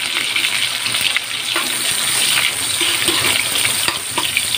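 Sliced onions sizzling in hot cooking oil in a wok, stirred with a metal spatula: a steady hiss with a few small clicks.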